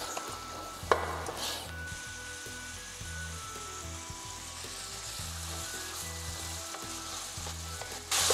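Diced lean bacon frying in pork lard in a stainless steel pan, a light steady sizzle as the fat comes up to temperature, with one knock of a wooden spatula on the pan about a second in. The sizzle grows suddenly louder near the end.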